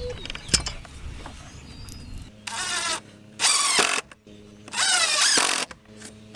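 Power drill driving screws through a metal anchor plate into a wooden board, in three short bursts with the motor pitch rising and falling. A sharp click comes about half a second in.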